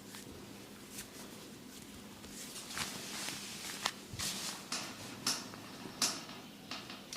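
Massage on a head and shoulders: hands rubbing skin and hair, with irregular sharp light slaps or taps, the loudest a little past halfway.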